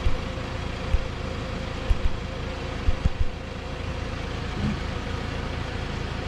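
Steady mechanical hum with a faint steady tone, broken by a few short, dull low thumps about once a second in the first half.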